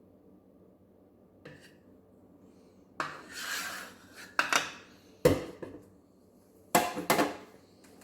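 A few knocks, clatters and short scrapes as the foam cannon's plastic bottle and soap containers are handled and set down. The sharpest knock comes about five seconds in.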